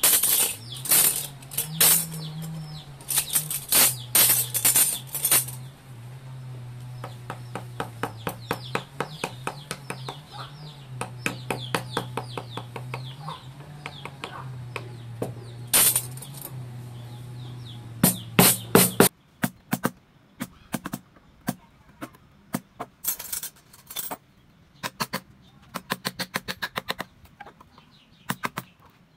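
Wood-carving chisel struck with a hammer and cutting into wood: a run of sharp taps, some hard and loud, many light and quick. A steady low hum sits behind them until it cuts off about two-thirds of the way through, leaving quicker, lighter taps alone.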